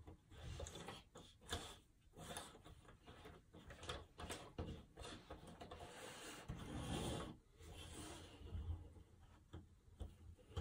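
Paperboard jigsaw puzzle pieces sliding and scraping over a tabletop as hands move and fit them, with scattered light clicks and taps. The sound is faint throughout.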